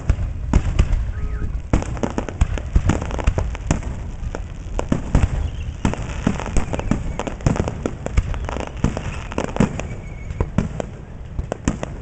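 Aerial fireworks shells bursting in a rapid-fire barrage, a dense run of bangs several a second, thinning out near the end.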